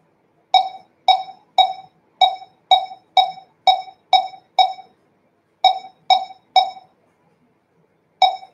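Omnidirectional laser barcode scanning platform beeping each time it reads the 1D barcode on a box held to it: short ringing beeps about two a second, a run of nine, a pause, three more, then another near the end. In automatic scanning mode it keeps re-reading the same barcode, and each beep marks a successful decode.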